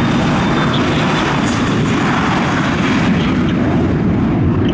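Jet engines of a three-engine Dassault Falcon business jet running loud and steady as it rolls along the runway past.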